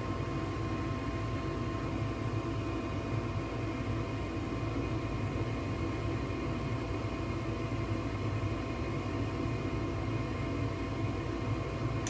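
Furnace draft inducer motor running steadily, an even whirring hum with a few constant tones, during the ignitor warm-up stage of the heating sequence before the gas valve opens.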